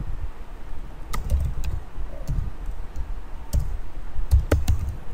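Typing on a computer keyboard: a handful of irregularly spaced keystrokes, each a sharp click with a dull thud beneath it.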